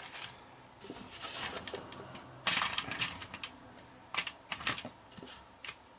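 Wooden thread spools and small kit parts being set down and shuffled in a clear plastic compartment box: a string of light clicks and knocks, the loudest cluster about two and a half seconds in.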